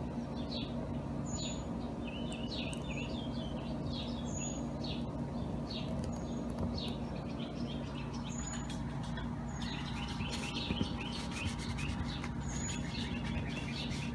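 Small birds chirping over and over in quick short calls, over a steady low hum.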